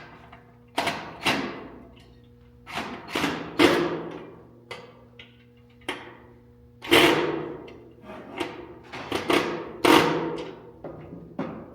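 Irregular knocks and taps on the vinyl-cutter stand's parts during assembly, some single and some in quick clusters of two or three, each with a short ringing tail.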